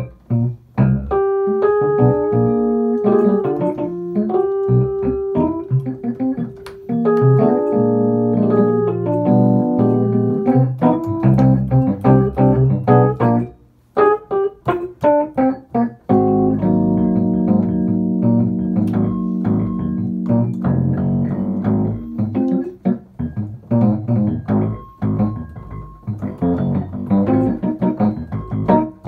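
A Fender Rhodes electric piano played with both hands: chords and melody lines. There is a brief pause a little before halfway, then held chords resume.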